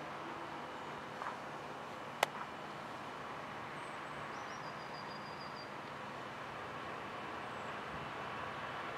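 Steady outdoor background noise with a distant Class 66 diesel locomotive approaching, its sound slowly growing louder near the end. A single sharp click about two seconds in.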